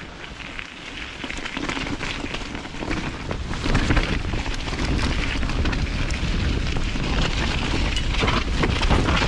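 Mountain bike rolling fast down a wet dirt forest trail: a steady crackle and rush of the tyres on dirt and roots, with many small knocks and rattles as the bike bumps over the ground.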